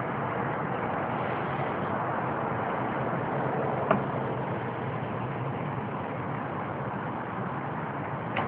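Steady rushing outdoor background noise with a faint low hum, broken by a single sharp click about four seconds in.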